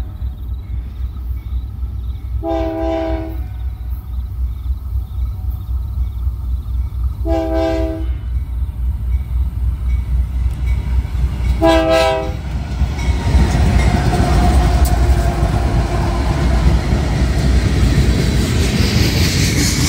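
BNSF diesel freight locomotives sounding their air horn in three short blasts about four seconds apart as the train approaches. From about halfway in, the locomotives' engines and wheels run past close by, getting louder toward the end.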